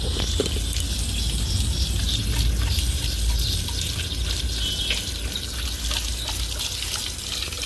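Water running from an outdoor wall tap and splashing onto the floor below, with a yellow Labrador drinking from the stream, over a steady low rumble.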